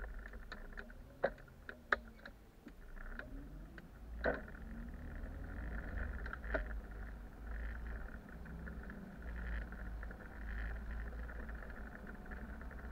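Replacement bus driving on a road, heard from inside: a steady low engine and road rumble, with a few sharp clicks and knocks from the body, the loudest twice in the first two seconds and again about four and six and a half seconds in.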